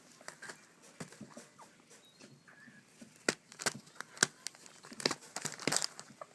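Baby African grey parrots being hand-fed: a run of sharp, irregular clicks and taps that grow denser and louder in the second half, with a few faint chick calls.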